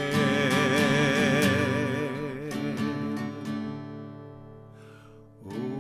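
Slow devotional song: a voice holds its last sung note with a gentle vibrato over strummed acoustic guitar. The note and chords fade away, and a fresh guitar chord is strummed near the end.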